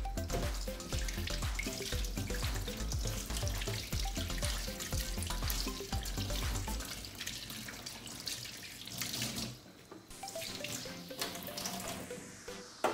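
Kitchen tap running into a stainless steel sink while pieces of red pepper are rinsed under the stream by hand. The flow drops away about ten seconds in.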